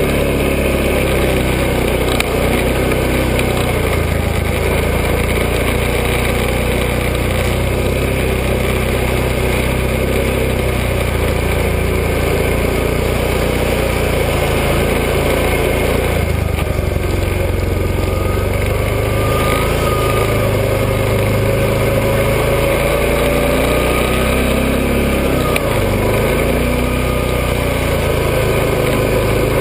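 Four-wheeler ATV engine running steadily under way, its note rising and falling a few times with the throttle.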